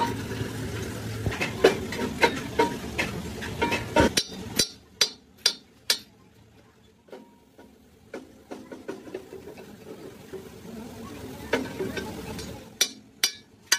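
Hand hammer striking a heavy steel bracket on a truck chassis frame: a run of quick blows, four clear strikes a few seconds in and three more near the end. A steady low hum runs under the first blows, stops about four and a half seconds in, and returns later.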